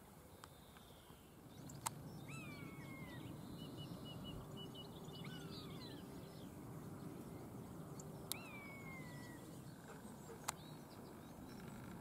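Common buzzard giving its drawn-out, downward-slurred mewing call twice, about six seconds apart, over a faint low background rumble. A few sharp clicks and a brief run of short high chirps are also heard.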